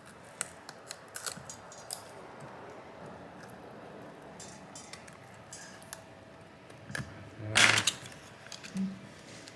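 Thin metal pry tool clicking and scraping against a phone's frame and screen glass as it is worked into the adhesive seam, with one louder scrape about three-quarters of the way through.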